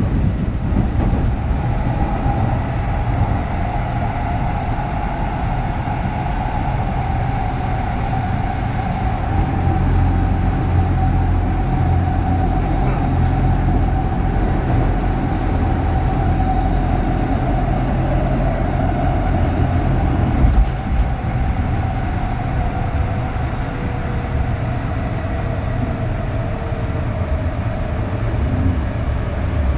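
Kintetsu 3200 series electric train running, heard from inside a motor car: steady low rumble with a held tone from the early Mitsubishi GTO VVVF inverter and traction motors. After about twenty seconds the tone sags, and a second, lower tone comes in and falls slowly.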